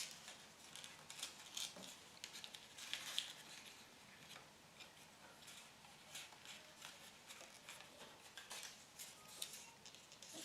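Thin card being folded and creased by hand: a run of faint crackles and small taps as the folds are pressed down.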